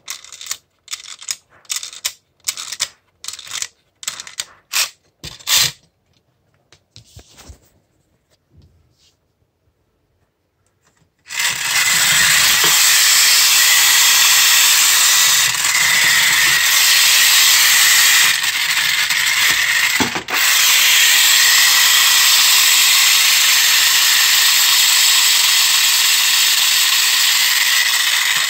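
A 1950s Arnold A643 tin wind-up motorcycle: its clockwork spring is wound with a series of short ratcheting bursts over the first six seconds. From about 11 seconds in, the released clockwork motor runs loudly and steadily, a fast even whir of the gear train. It dips briefly about 20 seconds in.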